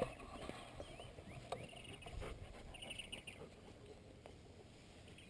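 Faint outdoor ambience of small birds chirping and a short insect-like trill about three seconds in, with a few light clicks and soft rustling in the grass.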